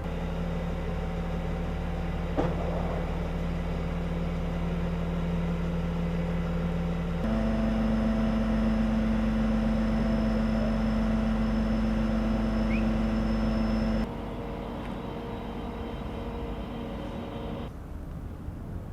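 A motor vehicle engine running steadily with a low, even drone. The pitch and level jump abruptly about seven seconds in, and the level drops about fourteen seconds in.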